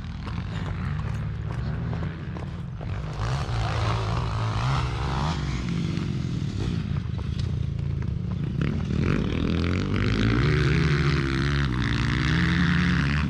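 Motorcycle engine running in the field, its pitch rising and falling as it revs, mostly in the second half. Heavy wind rumble on the microphone of a camera worn by a rider on horseback.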